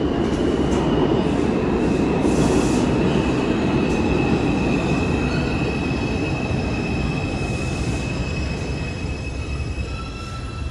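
New York City subway trains running through the station, a heavy steady rumble of wheels on rails with a steady high-pitched tone over it. The high tone fades out after about eight seconds and the rumble eases off toward the end.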